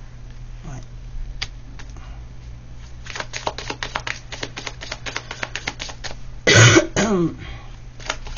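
Tarot cards being shuffled and handled, a run of rapid sharp clicks and flicks. Near the end a short, loud cough breaks in.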